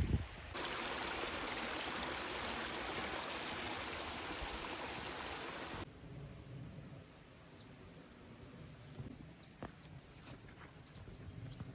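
Steady rush of flowing water that cuts off abruptly about halfway through, followed by quiet outdoor background with a few faint, short bird chirps.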